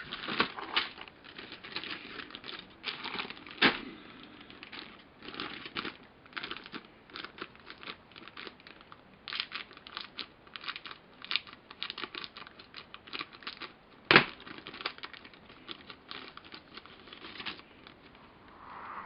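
Plastic kit-parts bag crinkling and rustling as parts are handled and taken out, with a couple of sharper snaps, the loudest about 14 seconds in.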